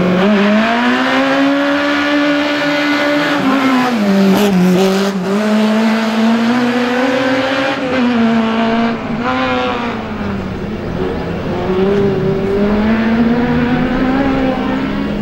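Small race car's engine revving hard under full throttle, its pitch climbing, dropping sharply and climbing again several times as it pulls through the gears and lifts for corners.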